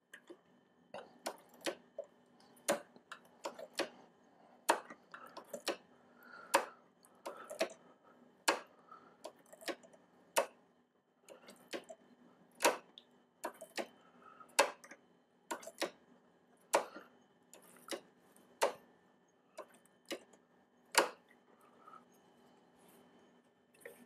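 Hand work on a motorcycle's rear brake while it is bled: short, sharp clicks and light knocks at irregular spacing, roughly one a second, from a spanner on the caliper's bleed nipple and the brake pedal being worked.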